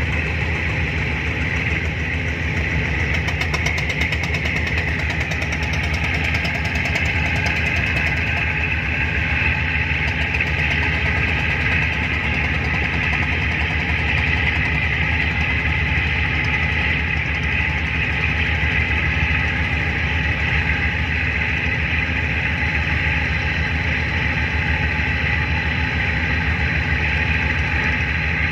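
Boat engine running steadily at constant speed, with a fast, even throb.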